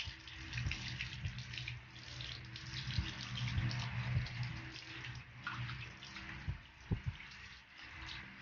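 Water from a garden hose running over hands and splashing onto a concrete floor as the hands are rubbed together, rinsing off grease-removing hand scrub.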